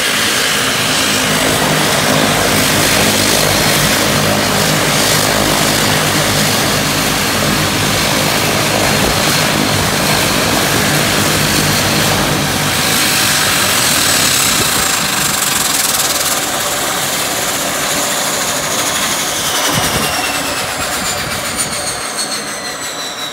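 Dash 8 turboprop's engines running at ground idle, then shutting down. From about halfway the turbine whine glides down in pitch and the engine noise fades as the propellers wind down.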